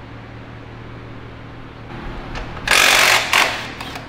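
Hand-held power tool working on the removed engine, running in one loud burst of about half a second and then a second short burst, over a low steady shop hum.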